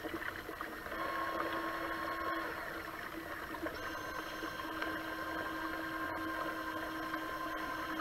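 A steady electric whine from the RC truck, made of several held tones that change pitch about a second in and again a little before the middle, over a steady rushing hiss of floodwater.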